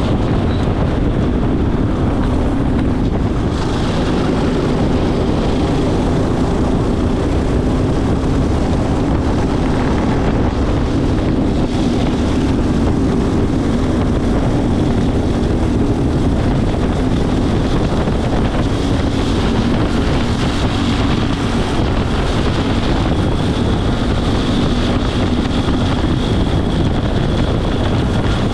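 Racing go-kart engine running hard at speed, its note wavering a little with the throttle, under heavy wind buffeting on the onboard microphone.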